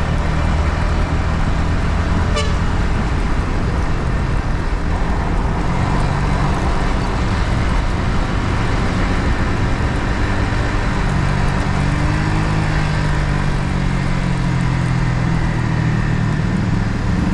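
Yamaha MT-15's 155 cc single-cylinder engine running on the move through its stock exhaust, its note shifting a few times as the revs change. A short high chirp sounds about two seconds in.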